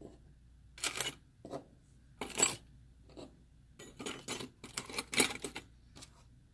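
Cast metal miniatures clinking and clattering against one another and a clear plastic blister tray as they are handled and packed in: a string of short, irregular knocks, busiest about four to six seconds in.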